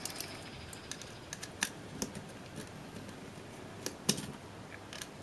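Scattered light clicks and ticks of a small screwdriver and plastic parts on a digital camera's small zoom lens assembly as it is taken apart. About ten clicks come at uneven intervals, the loudest about one and a half seconds and four seconds in.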